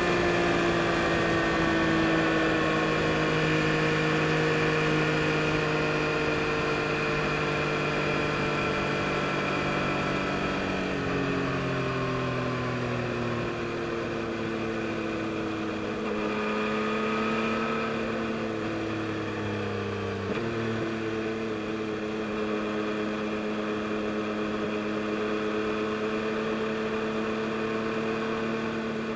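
2022 Yamaha MT-09 SP's 890 cc inline three-cylinder engine running under way, its note falling slowly as the bike slows over the first half. The pitch drops in steps as it shifts gear, once about halfway through and again about two-thirds in, then holds at a steady cruise.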